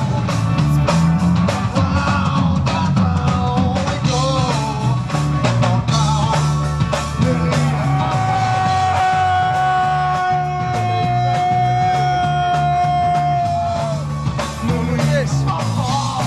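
Rock music with singing, guitar and a pulsing beat. A long held note in the middle dips slightly before it ends.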